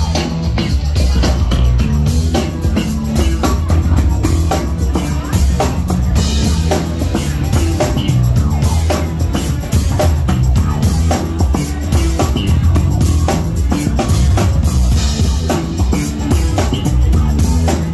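A live band playing a loud, steady groove, led by a heavy electric bass line and a drum kit keeping a busy, regular beat.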